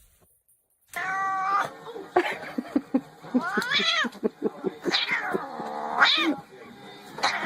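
Domestic cat yowling: a string of long, drawn-out meows that rise and fall in pitch, starting about a second in.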